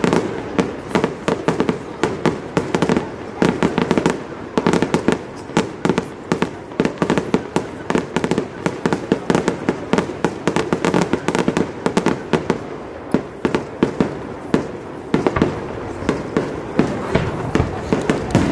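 Aerial fireworks display: a dense, unbroken barrage of shell bursts and crackling, with many sharp bangs each second.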